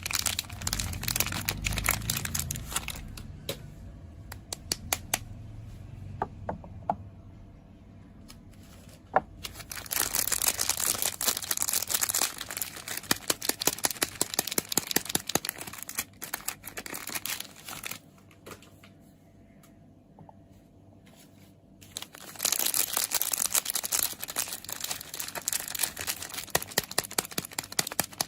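Soap packaging being unwrapped by hand: wrappers crinkling, crackling and tearing. It comes in three busy stretches separated by two quieter pauses with only a few scattered crackles.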